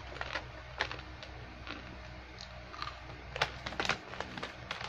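Irregular crackles and clicks from a plastic snack pouch of fruit crisps being handled.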